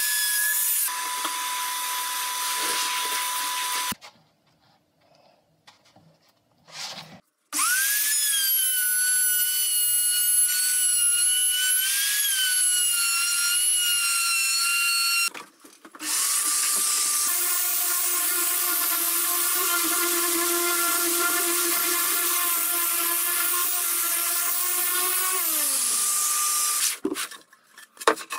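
Compact electric router running with a steady high whine while cutting grooves into plywood. It runs in three stretches with short quiet gaps. About seven seconds in it spins up, and near the end it winds down.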